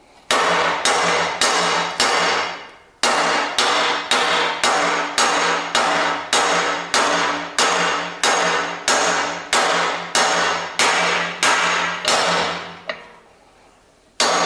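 Hammer tapping steadily on a driveshaft yoke to drive out a universal joint's bearing cup, about two blows a second, each with a brief metallic ring. It pauses briefly about three seconds in and again near the end.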